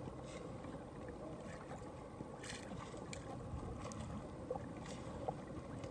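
Small waves lapping against a kayak hull, with a few short splashes.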